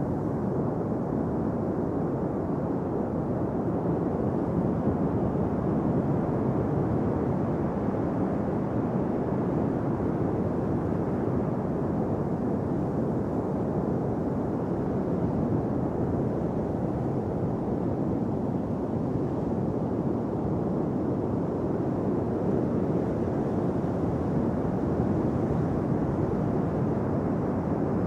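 Steady beach ambience: an even, low rushing of ocean surf mixed with wind on the microphone, with no distinct engine or motor tone.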